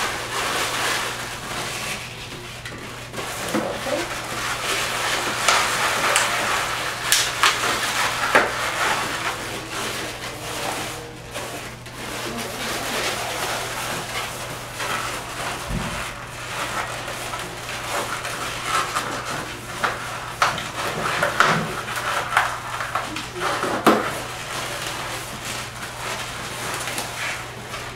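Inflated latex modelling balloons handled and twisted together by hand: the rubber rubs and squeaks, with many small clicks and scratchy strokes, over a steady low hum.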